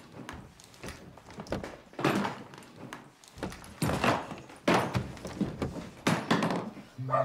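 A series of dull thumps and knocks, the first loud one about two seconds in and then roughly one a second, with faint clicks between them. Music notes come in right at the end.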